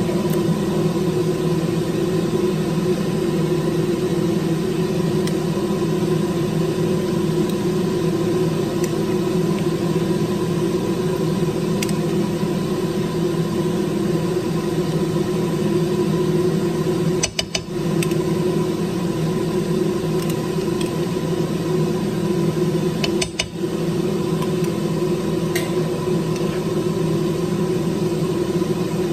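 Kitchen extractor fan running with a steady hum, with faint ticks of a utensil against the pan a few times. The hum cuts out for a moment twice.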